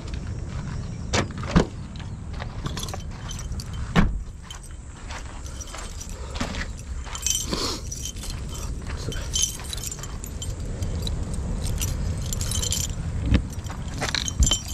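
A large bunch of keys jangling in the hand as a camper van's storage compartment is unlocked, with a few sharp knocks and clicks from the lock and latch.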